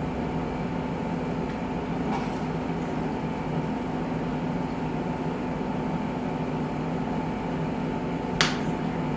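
Steady low hum of room machinery, with a single short sharp click about eight seconds in.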